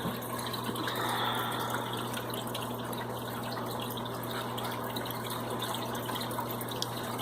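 Steady running and trickling of aquarium water, over a constant low hum.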